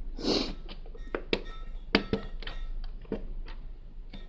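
Lego bricks being handled: hard plastic pieces clicking and knocking together in a scattered run of sharp ticks, with a short breath near the start.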